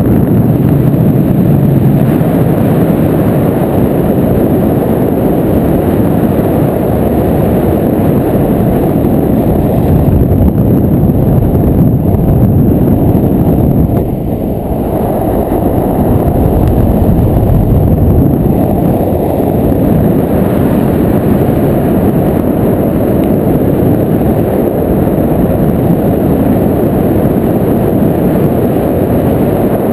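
Loud, steady wind noise rushing over a handheld camera's microphone in paraglider flight, easing briefly about halfway through.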